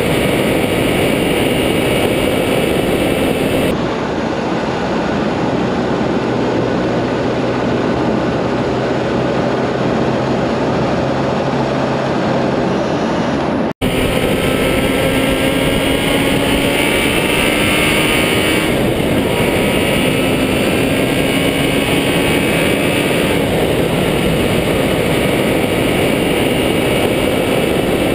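Vehicle driving along a road, heard from an onboard camera: a loud, steady rush of wind and road noise over a faint engine hum whose pitch rises gently now and then. The sound drops out for an instant about fourteen seconds in.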